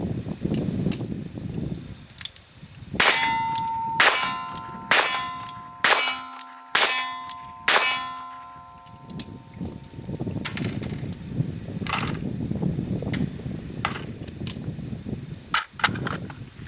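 Six .22 LR revolver shots fired single action, about one a second, each leaving a metallic ringing that lingers after the last. Every round fires with no misfire, the cocked hammer's longer fall giving a firm firing-pin strike.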